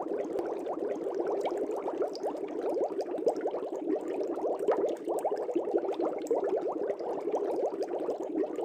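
Fish-tank air bubbles bubbling steadily, a dense stream of small, quick, rising blips.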